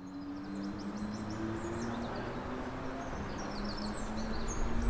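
Outdoor ambience of small birds chirping in short high calls over the low, steady hum of a distant engine. A low rumble swells slightly near the end.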